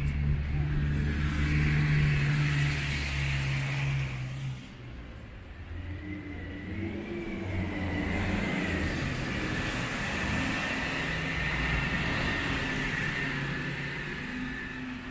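Road traffic on a wet street: a motor vehicle's engine runs loud and close for the first four and a half seconds, then drops away, and more traffic goes by with tyre noise and a faint steady whine.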